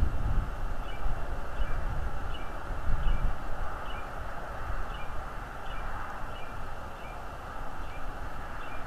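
Wind rumbling on an outdoor nest-cam microphone, strongest in the first few seconds. Over it come faint, short, high chirps from a bird, repeating about every half second.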